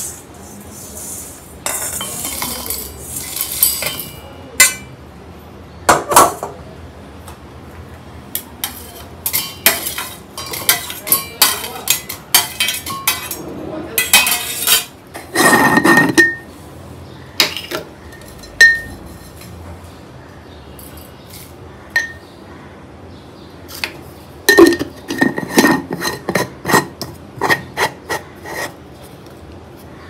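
Kitchen utensils clinking, knocking and scraping against pots and dishes in a long run of short, irregular strikes, some ringing briefly. There is a louder scraping stretch about halfway through.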